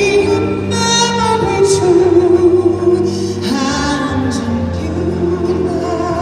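A woman singing a slow ballad into a microphone, amplified through a PA, with held notes and vibrato over a sustained musical accompaniment.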